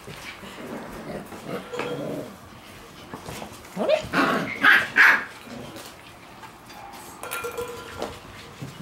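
Shiba Inu puppies barking in short bursts. The barks are loudest about four to five seconds in, with quieter ones before and near the end.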